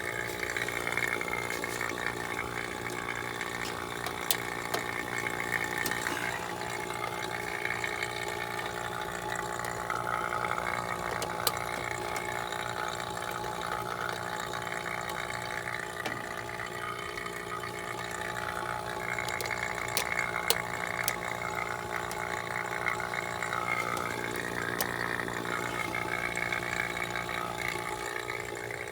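Refrigeration vacuum pump running steadily, pulling a vacuum on the heat pump system to draw out moisture, its motor humming under a gurgling, churning noise. A few short sharp clicks from hand work on the wiring.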